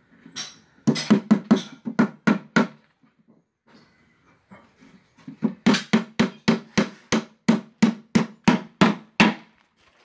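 Hammer blows driving a nail into a warped wooden board of a bee box: a short run of about eight quick strikes about a second in, a pause, then a longer run of around fifteen strikes at about four a second. The smooth nail is not pulling the warped board flat.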